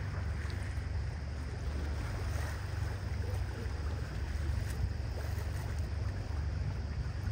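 Boat under way: a steady low drone with the hiss of water and wind on the microphone.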